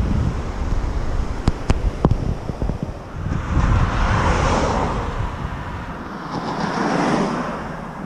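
Wind rumbling on the microphone of a moving bicycle, with a few sharp clicks about a second and a half in. A passing car's tyre noise swells and fades from about three and a half to five seconds in, and a second swell of road noise comes near seven seconds, about when the wind rumble drops away.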